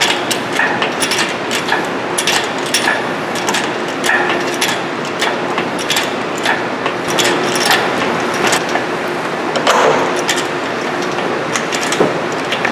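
Hand tools clinking and knocking on metal, irregular sharp clicks and clanks over a steady shop background, as the upper motor mount is taken off an engine being prepared for removal.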